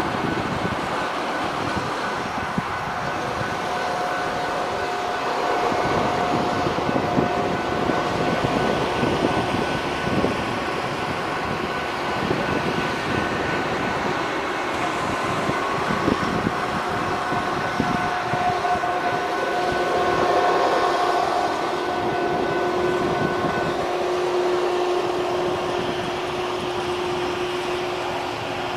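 Railroad grade-crossing signal ringing, heard as steady tones that come and go, while maintenance-of-way rail vehicles roll along the track. Road traffic and wind noise are underneath throughout.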